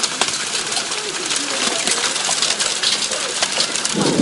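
Rain and hail falling hard, a dense hiss full of sharp ticks of hailstones striking.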